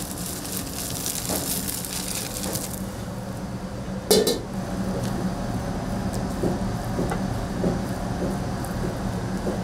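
Egg fried rice sizzling in a wok for about three seconds. Then one loud metal clank and a few lighter knocks of utensils on the pan, over a steady low hum.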